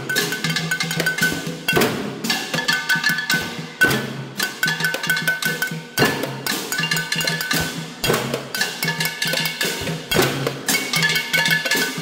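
A makeshift percussion band beating metal frying pans, pots, plastic basins and jugs with wooden sticks in a cumbia rhythm: fast metallic clanks, the pans ringing after each strike, with a heavy accent about every two seconds.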